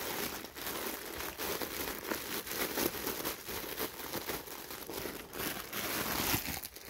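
Clear plastic bag crinkling and rustling as balls of yarn are pushed back into it by hand; the crackling dies away near the end.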